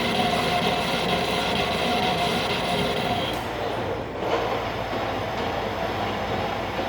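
Metal lathe running while it turns down a cart axle tip, a steady mechanical whir with a tone in it; about three seconds in the higher, hissing part of the sound drops away and the sound changes.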